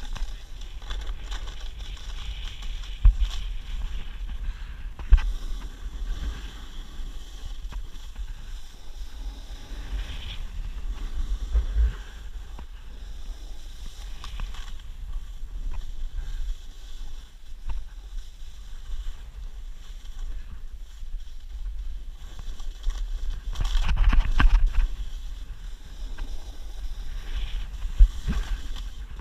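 Wind rumbling on an action camera's microphone during a downhill run over powder snow, with the hiss and scrape of sliding across the snow. A few sharp knocks break in, and the rushing grows louder for a couple of seconds a little past two-thirds of the way through.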